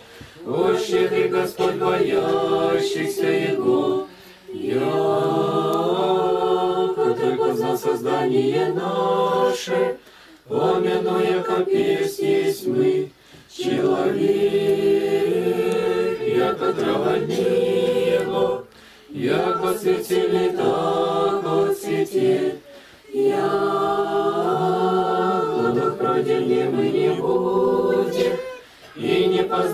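Choir singing Orthodox liturgical chant a cappella, in phrases held mostly on one reciting note and broken by short pauses.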